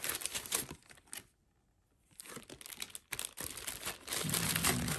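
Clear plastic zip bag crinkling as hands open and handle it. The crinkling stops for under a second, about a second in, then starts again.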